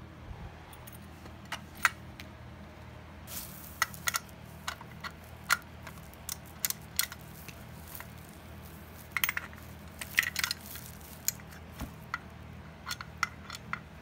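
Irregular sharp metallic clicks and clinks as manual fire alarm pull stations and a small key ring are handled, busiest about four seconds and ten seconds in. A low steady hum sits underneath.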